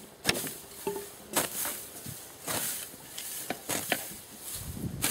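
Irregular sharp knocks of a hand tool striking the ground and wood, between stretches of rustling dry grass and twigs as earth is worked by hand.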